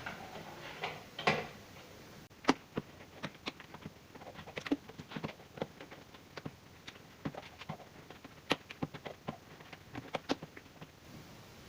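Irregular light clicks and knocks of kitchen containers and utensils being handled while leftover porridge is packed away for the fridge.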